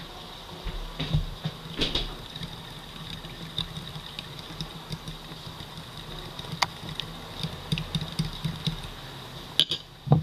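A metal spoon beating eggs and milk in a ceramic bowl, clinking and tapping irregularly against the bowl, with a couple of louder knocks near the end. A steady low hum lies underneath.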